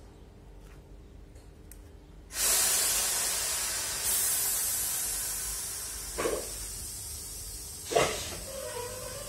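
Sudden loud hiss of compressed air venting from a ČD class 242 electric locomotive, starting about two seconds in and slowly dying away. Two short knocks come near the end.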